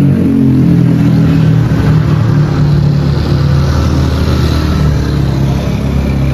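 A motor vehicle's engine running loud and close, its low hum shifting in pitch as it revs, with road traffic noise around it.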